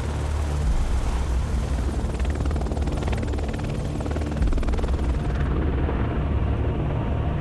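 British Army Apache AH Mk1 attack helicopter running, its main rotor beating steadily over the drone of its turboshaft engines, with a high hiss that drops away about five and a half seconds in.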